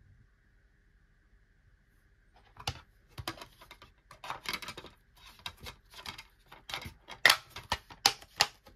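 Disc being fitted into a black plastic DVD case and the case being handled shut: an uneven run of sharp plastic clicks and rustles starts about two and a half seconds in, with the loudest clicks near the end.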